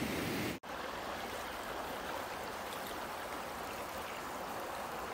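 Shallow creek flowing over a riffle: a steady, even rush of water that sets in after a brief break about half a second in.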